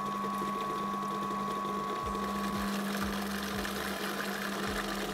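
Food processor motor running with a steady hum while oil is drizzled in to emulsify egg yolks into mayonnaise. A higher whine in the hum drops out a little under three seconds in.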